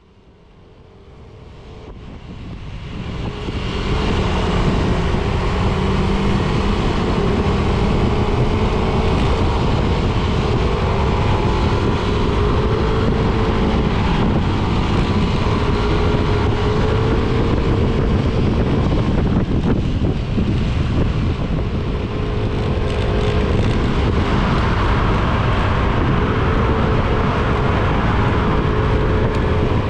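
Motorcycle engine running steadily at cruising speed, with wind and road noise rushing past. It fades in from silence over the first few seconds.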